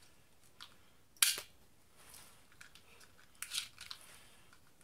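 Toy ping-pong ball gun firing with one sharp spring snap about a second in, then a quick run of plastic clicks a couple of seconds later as it is pulled back to load again.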